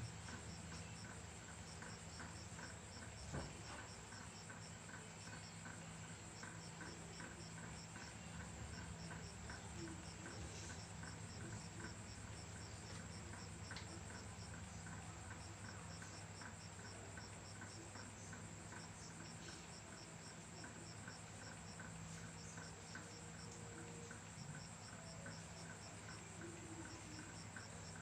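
A cricket chirping in an even, unbroken rhythm, a few chirps each second, over a low steady hum.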